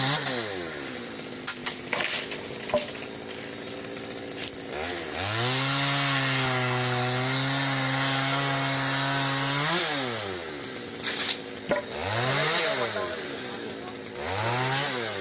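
Chainsaw revving up and down: the engine drops from high speed to idle, climbs again about five seconds in and holds high for about five seconds before dropping back, then gives two short blips of throttle near the end. A few sharp knocks are heard between the revs.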